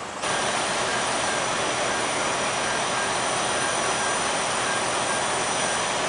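A steady, loud mechanical rushing drone with faint high whines, cutting in suddenly just after the start.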